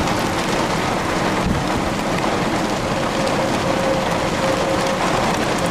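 Steady heavy rain falling during a thunderstorm, an even rushing noise with no breaks. A faint steady tone sits under it in the second half.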